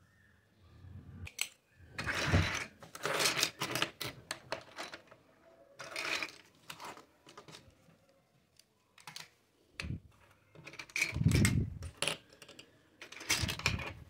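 Small plastic toy kitchen pieces clicking and clattering against each other and the table as they are handled, in irregular bunches of taps with short quiet gaps.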